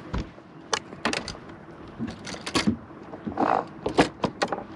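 A dozen or so sharp, irregular clicks and knocks, with a short rustle about three and a half seconds in.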